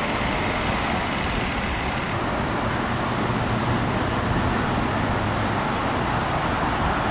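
Steady road traffic noise, an even hiss and hum without any single standout event.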